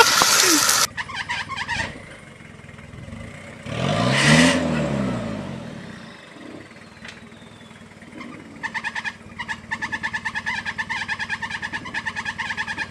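A Toyota 4x4's engine revs up and drops back once about four seconds in. Before that, a louder noisy clatter cuts off within the first second, and near the end a fast, even run of high-pitched pulses sets in.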